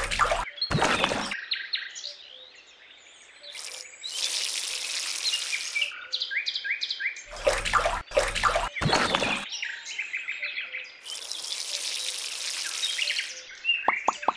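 Birds chirping and singing throughout, while a small cup is dipped into a miniature pond with splashing twice, each time followed by a couple of seconds of rushing, pouring water.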